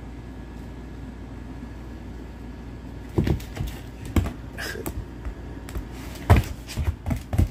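A low steady hum, then from about three seconds in a run of irregular thumps and knocks as a serval pounces and leaps about on a foam mat and wooden floor. The loudest knock comes about six seconds in, followed by a quick cluster of smaller ones.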